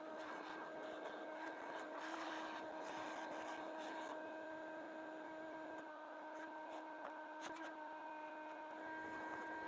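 A steady, fairly quiet machine hum holding one pitch, with a few light clicks about three quarters of the way through.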